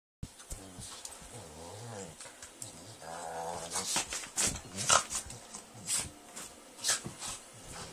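Dog making a low growling grumble, then a string of short, sharp sneezes about half a second to a second apart, the loudest about five seconds in.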